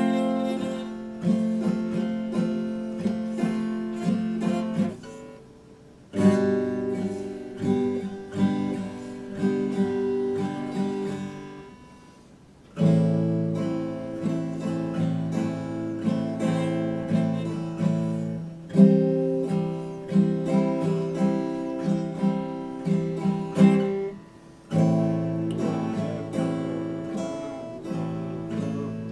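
Epiphone acoustic guitar strummed and picked in chords, playing in phrases that stop briefly about five, twelve and twenty-four seconds in before the next chord is struck.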